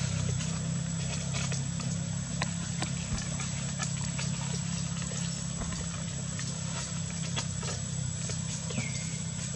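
Steady low hum of an idling engine, with scattered faint clicks and a short high falling squeak near the end.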